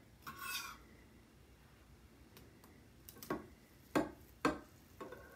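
Kitchen knife cutting through a pan of brownies, its blade knocking against the bottom of a glass baking dish: a few sharp clicks about half a second apart in the second half.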